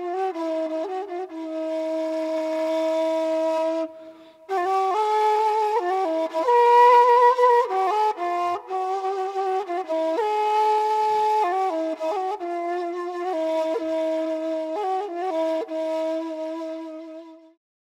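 Background music: a slow melody on a flute-like wind instrument, with long held notes and small ornaments. It breaks off briefly about four seconds in and fades out near the end.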